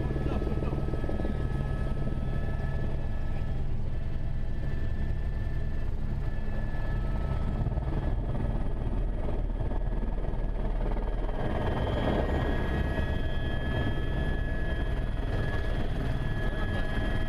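Écureuil helicopter's turbine and rotor heard from inside the cabin: a steady drone with a whine over it, as it descends on approach to land on a grass field. A higher whine joins in about two-thirds of the way through as it comes down close to the ground.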